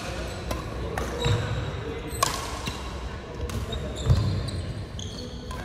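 Doubles badminton rally: several sharp racket hits on the shuttlecock, with court shoes squeaking and feet thudding on the wooden floor.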